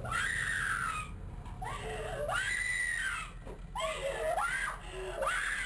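A person screaming in four long cries that rise and fall in pitch, quieter than the talking around them.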